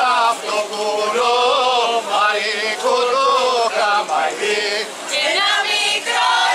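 A group of voices singing a traditional Greek folk dance song, long held notes that waver as the melody moves.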